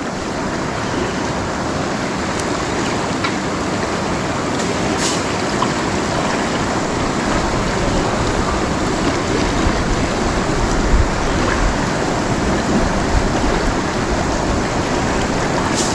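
Shallow river running fast over rocks, a steady rush of water with a faint sharp click about five seconds in.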